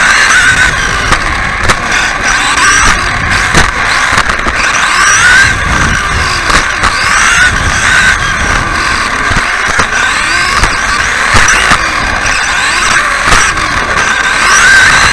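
Electric RC offroad buggy's motor and drivetrain whining, the pitch rising and falling over and over as the throttle is worked through the corners, with short knocks from the chassis over bumps and landings.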